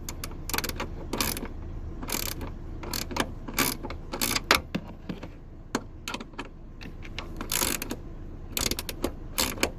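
Ratchet spanner clicking in short, irregular bursts as the new boot strut mounting bolts are tightened.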